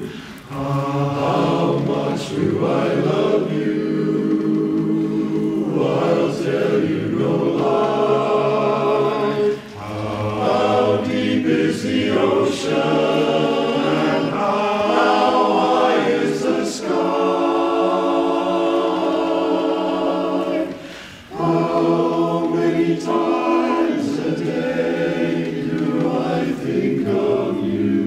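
Men's barbershop chorus singing a cappella in close harmony, holding sustained chords in long phrases, with short breaks between phrases about ten seconds in and again around twenty-one seconds.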